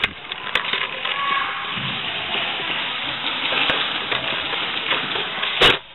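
Indoor airsoft game din: a steady noisy wash with a few scattered sharp snaps and one loud crack near the end.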